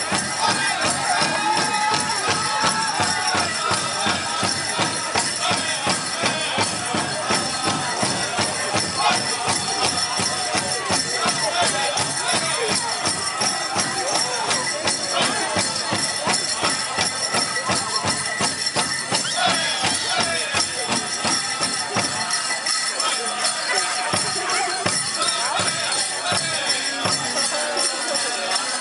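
Powwow drum group singing over a steady, driving beat on a big drum, with the dancers' bells jingling. The deep drumbeat drops away about three-quarters of the way through.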